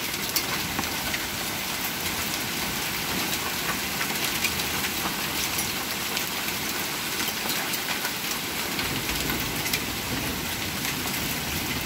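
Hail and rain falling: a steady hiss of rain with many sharp, irregular ticks of hailstones striking.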